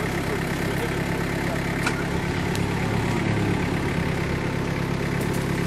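Off-road trophy vehicle's engine idling steadily, with a slight swell in the middle.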